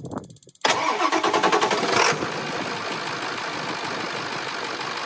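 A Ford 7.3-litre V8 diesel is cranked by its starter on two lead-acid batteries, drawing over 600 amps. The cranking starts suddenly about half a second in, with a fast, even pulsing. From about two seconds in a steady engine sound follows, which the tagger reads as the engine starting and idling.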